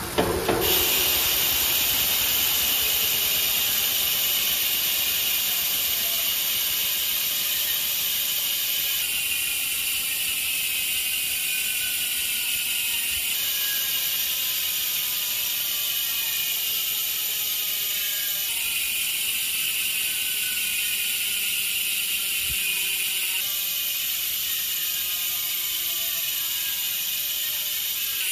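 Freewheeling rear bicycle hubs ticking in a fast buzz as a spun wheel coasts, in short alternating takes of an Industry Nine 1/1 hub (6 pawls, 90 engagement points) and a Hope Pro 4 hub (4 pawls, 44 engagement points). The switches between hubs come about every five seconds, and within each take the click rate slowly falls as the wheel slows.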